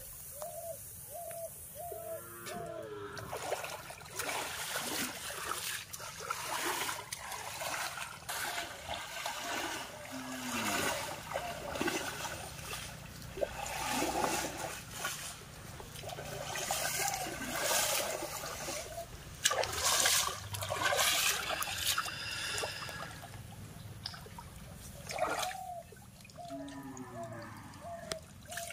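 Water splashing and sloshing as a person wades waist-deep through a pond, in uneven bursts with many sharp splashes through the middle. A bird calls in a run of short repeated notes at the start and again near the end.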